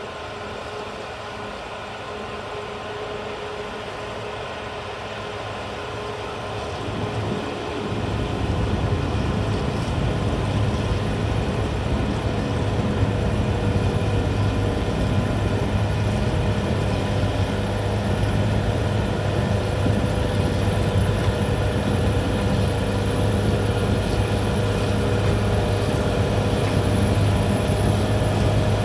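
CAT D6R XL bulldozer's diesel engine running steadily, growing louder about seven seconds in and then holding steady.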